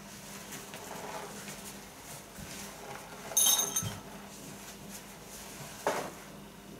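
A sharp, ringing clink of a small hard object a little over three seconds in, then a duller knock just before six seconds, over soft shuffling of a person and a dog moving on a rug.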